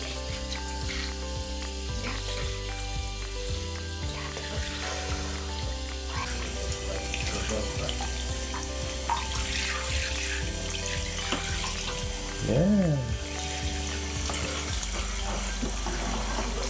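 Water spraying from a handheld shower head into a baby bathtub: a steady hissing stream, under soft background music of sustained notes. A short rising-then-falling tone about three-quarters of the way through is the loudest moment.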